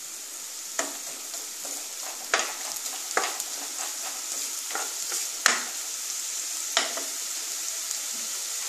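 Chopped onion sizzling steadily in a little hot refined oil in a non-stick kadai, at the start of softening. A wooden spatula stirs it, giving about half a dozen sharp taps and scrapes against the pan at uneven intervals.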